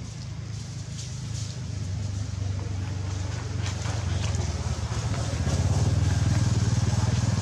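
An engine running with a steady low hum, growing louder over the last few seconds.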